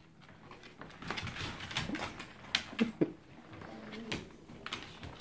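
Dogs' claws clicking and tapping on a hardwood floor as they move about, an irregular run of sharp ticks, the loudest a few seconds in, with a few brief whines in between.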